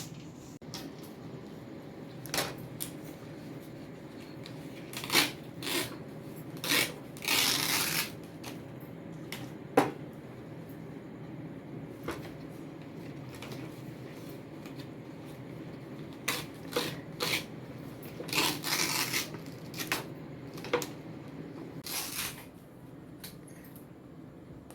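Tender palm leaf being cut into pieces and handled: a series of crisp, rustling strokes, most short, a few about a second long, over a low steady hum.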